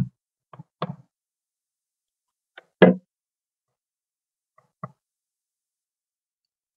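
A few short knocks of kitchenware being handled and set down on a countertop, the loudest about three seconds in.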